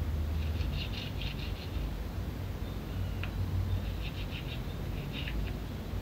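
Rapid high chirping from an animal, in short trains of about half a dozen quick notes, over a steady low hum. A single light click about three seconds in.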